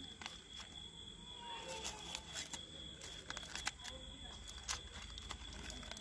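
Aluminium foil crinkling and crackling in irregular, quick little clicks as hands unwrap a crumpled foil parcel of food.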